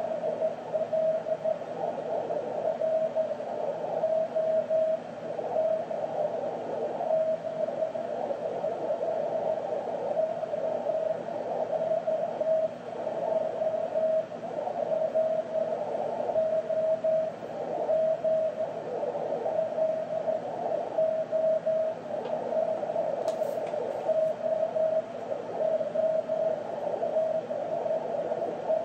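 Slow Morse code (CW) from a 432 MHz moonbounce (EME) station heard through the receiver: a single whistle-like tone keyed in long dashes, wavering in strength, over steady receiver hiss. The signal is sending an "OOO" signal report.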